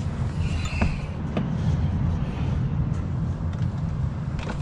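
A few light plastic clicks and handling noises from the door panel and its window switch connector being worked free, over a steady low rumble.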